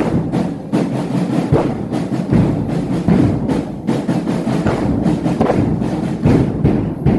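Ashura zanjirzani mourning beat: a drum and the mourners' iron chains striking together in a steady rhythm about every three-quarters of a second, over a dense wash of crowd voices.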